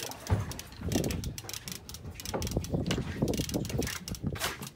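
Large conventional fishing reel being cranked hard, its gears clicking rapidly, as a hooked shark is reeled in on heavy tackle.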